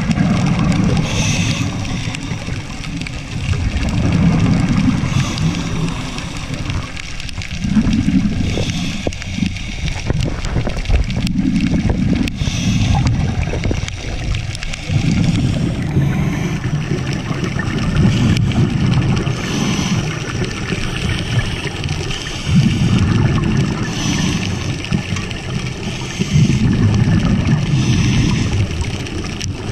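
Diver's scuba regulator heard underwater: steady breathing in a regular cycle about every four seconds, a short hiss on each inhale alternating with a longer low rush of exhaled bubbles.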